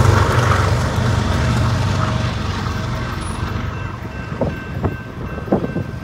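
Diesel freight train rumbling away past a grade crossing, its low engine rumble and wheel noise fading steadily. Thin steady tones from the crossing signal come through in the second half, with a few sharp knocks near the end.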